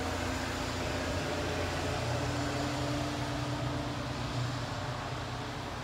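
ThyssenKrupp glass elevator running: a steady mechanical hum with a few held tones, the low one growing stronger for a couple of seconds in the middle.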